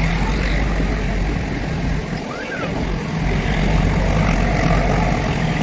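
Nilgiri Mountain Railway toy train running, a steady low rumble and hum with faint voices in the background.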